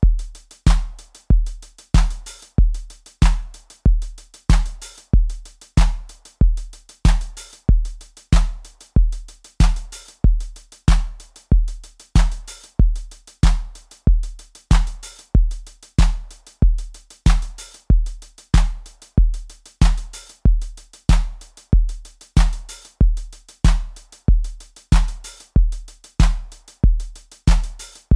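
Background music: a Roland TR-8 drum-machine groove in 4/4 at 94 bpm, a loud kick on about one and a half beats a second with lighter drum hits between.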